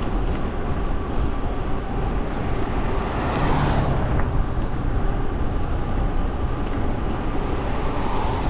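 Steady wind and road rumble while riding an e-bike, with a vehicle passing about three and a half seconds in, swelling and then fading.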